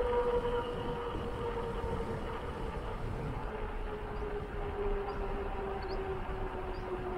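Touring bicycle rolling on asphalt: its tyres give a steady whine that slowly falls in pitch as the bike slows. Wind rumble on the microphone runs underneath.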